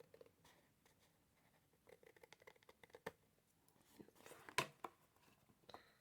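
Faint rustling and small clicks of cardstock being handled and trimmed, with one louder sharp click about four and a half seconds in.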